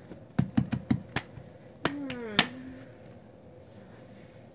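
A quick run of five or six sharp clicks in under a second, made by a small hand-held object being worked, then two more single clicks about a second later.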